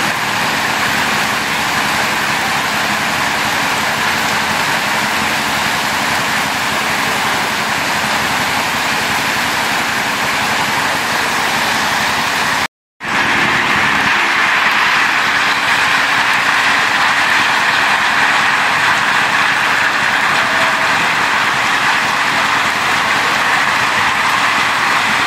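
Heavy rain mixed with hail pelting a road, a loud steady hiss, broken by a split-second gap about halfway through.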